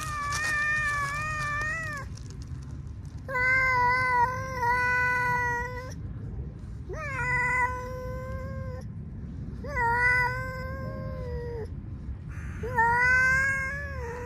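Long-haired tabby cat giving five long, drawn-out yowls, each about two seconds and held at a steady pitch, with short pauses between them.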